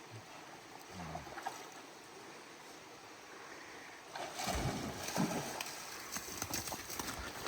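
Brook water running steadily. From about four seconds in there is irregular splashing, a dog wading through the shallow stream.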